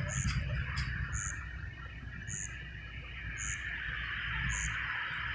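Animal calls: a steady chorus with a short high chirp repeating evenly about once a second, over a low steady rumble.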